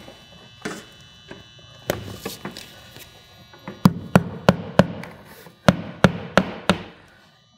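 Hammer tapping a nail through the nailing slot of a vinyl corner post into the wall. A few scattered knocks come first, then a quick run of about nine sharp strikes starting about four seconds in, tacking the nail in place.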